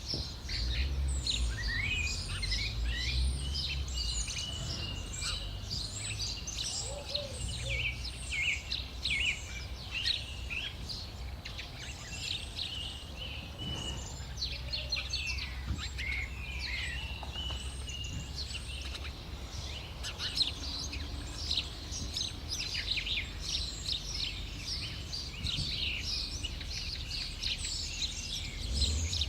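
Many small birds chirping and tweeting continuously, short overlapping calls and whistles, over a steady low background rumble.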